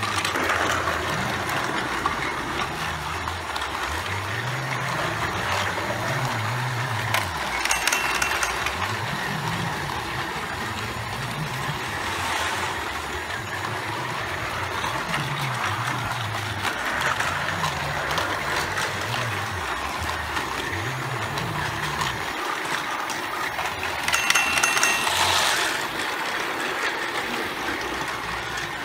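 Several battery-powered Plarail toy trains whirring and rattling along plastic track, their motor hum wavering up and down. Louder clattering comes about eight seconds in and again toward the end.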